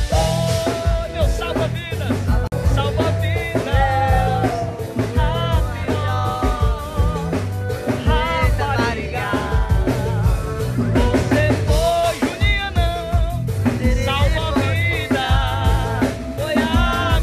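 A song playing: a sung vocal with wavering, vibrato-like notes over drums and bass that keep a steady beat.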